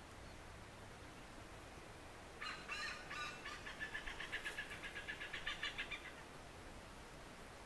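Malabar pied hornbill giving a rapid cackling call, a run of quick pitched notes at about five a second, starting about two and a half seconds in and lasting about three and a half seconds.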